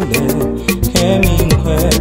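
Music: an upbeat African gospel song with a steady beat of regular percussion strokes over bass.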